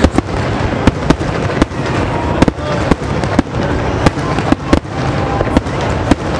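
Aerial firework shells bursting in rapid succession: sharp bangs about two to three a second over a continuous rumble and crackle of overlapping explosions.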